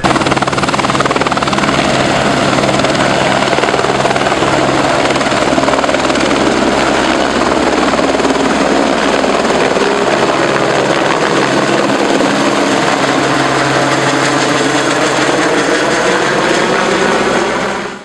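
AS350 Esquilo helicopter's turbine engine and rotors running at flight power as it lifts off and flies overhead: a loud, steady high whine over the beat of the rotors. The sound fades out sharply at the very end.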